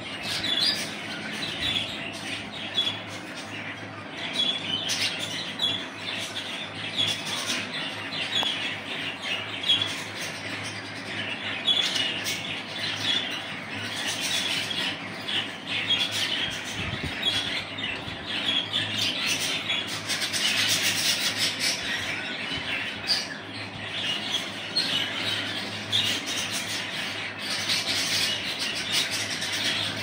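A group of caged budgerigars chattering: a continuous, busy mix of warbling chirps and squawks.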